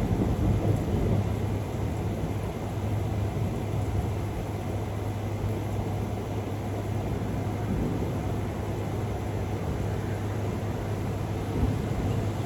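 Thunderstorm: a low rolling rumble of thunder that swells at the start and again near the end, over a steady low hum.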